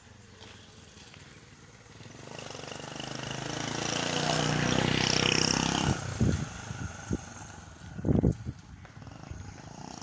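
Motorcycle engine passing close by, growing louder over a few seconds and then dropping away suddenly, followed by a few knocks and thumps.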